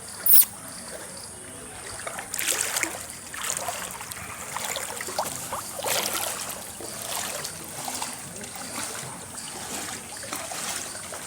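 Floodwater splashing and trickling, with uneven splashes every second or so. A short, sharp high-pitched sound about half a second in is the loudest moment.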